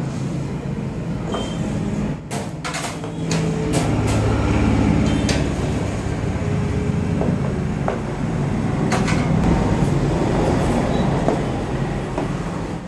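Steady low rumble with scattered sharp clicks and knocks of wooden sticks and a metal scraper against a large metal tray as soan papdi dough is worked, a cluster of clicks a couple of seconds in and a few more later.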